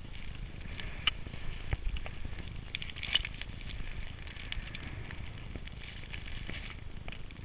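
Riding down through fresh powder snow: a continuous hiss and rush of snow with frequent crackly scrapes and rustles, over a low wind rumble on the camera microphone.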